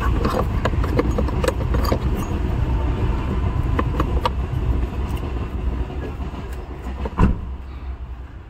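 Small plastic clicks and rattles as a replacement immobilizer module and its wiring connector are handled and pushed into place, over a steady low rumble. A single thump comes about seven seconds in.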